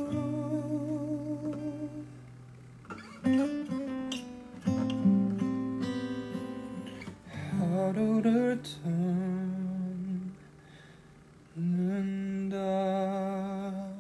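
Steel-string acoustic guitar fingerpicked slowly, single notes and chords ringing out in short phrases, with a brief lull about eleven seconds in.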